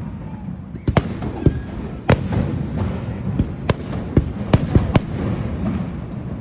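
Fireworks display: a dozen or so sharp bangs at uneven intervals over a continuous low rumble of distant bursts.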